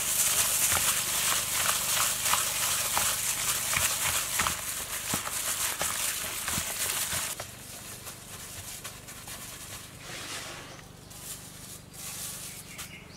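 A plastic-gloved hand squelching and kneading sliced raw beef in its wet marinade in a bowl, with the glove crinkling and many small wet clicks. The sound drops to softer, sparser squishes about seven seconds in.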